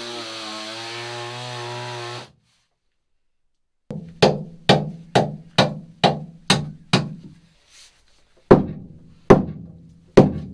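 A handheld power tool runs with a steady buzz for about two seconds and stops. After a pause come about ten hammer blows on a chisel driven into the wall panel: seven quick ones about half a second apart, then three slower ones, each with a brief low ring.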